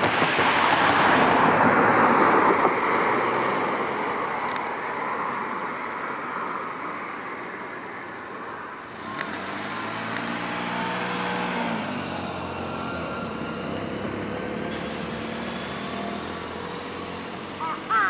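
Road traffic going past: a vehicle's noise swells loudly over the first few seconds and fades away, and a second vehicle passes about ten seconds in with its engine hum audible. Right at the end a jungle crow gives a short call.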